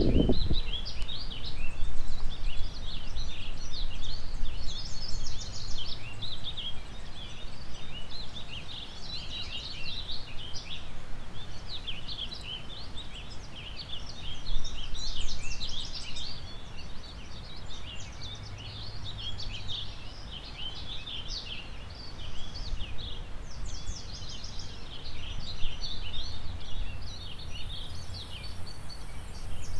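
Many birds chirping and singing at once, a dense overlapping chorus of short high notes, over a low, uneven rumble.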